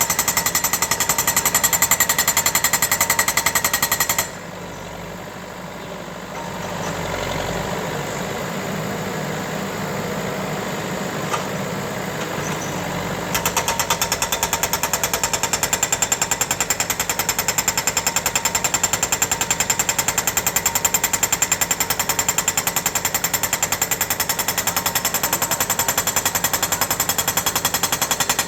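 A diesel engine running with a rapid, even knock. About four seconds in it changes abruptly to a quieter, lower running sound, and about thirteen seconds in the loud rapid knocking returns.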